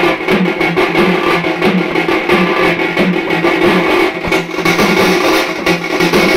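Satti molam drum ensemble: two stainless-steel pot drums and a small side drum beaten with sticks in a fast, steady rhythm, the steel shells ringing with each stroke.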